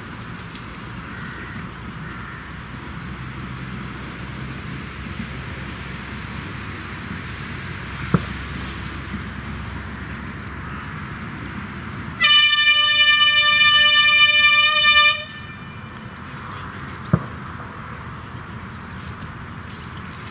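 Narrow-gauge diesel locomotive's horn sounding one long steady blast of about three seconds, a warning as the train approaches a level crossing. Small birds chirp throughout, and there are two sharp clicks, one before and one after the horn.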